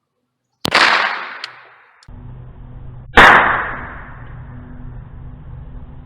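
Two .22 LR gunshots from an AR-15 pistol fitted with a .22 conversion kit, about two and a half seconds apart, each with a short echoing tail; the second is louder.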